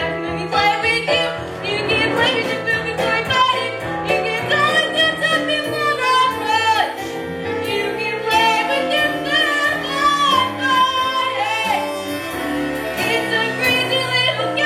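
A song from a stage musical: singing over instrumental accompaniment.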